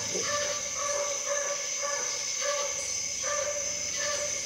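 Walker hound baying on a running deer's track, a steady string of short bawls about two a second. Insects chirr steadily underneath.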